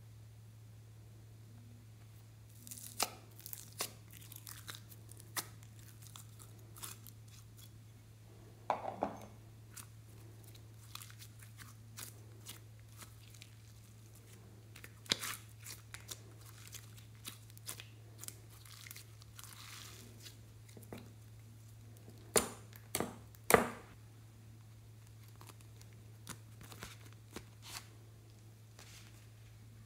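Slime being handled and poured by hand: scattered sticky pops, crackles and clicks, with a few sharper snaps about 22 to 24 seconds in. A low steady hum runs underneath.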